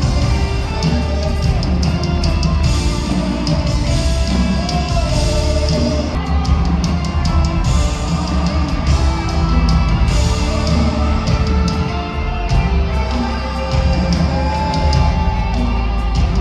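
Live gospel worship music in a large hall: a band with heavy bass and drums, singers, and a crowd calling out now and then.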